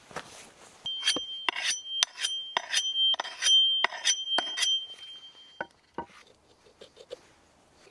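Steel blade scraped in about a dozen quick strokes, with a high metallic ring held under them. Two sharp knocks follow as the axe is set down against the wooden stump.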